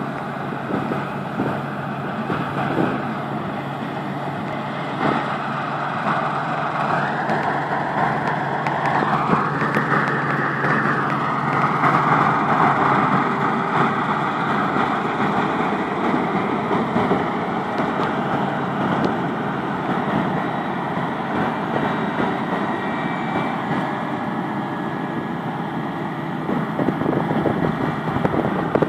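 Claas Lexion 770 TerraTrac combine harvester running under load while threshing wheat: a steady engine and machinery drone with one constant low tone. It grows louder around ten seconds in as the combine passes close, then settles back.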